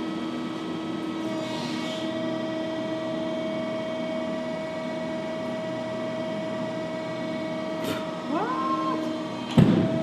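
A Finn-Power 320-ton hydraulic crimping machine running with a steady hum while its eight radial dies close and crush a roll of paper. Near the end there is a short rising whine, then one sharp, loud knock.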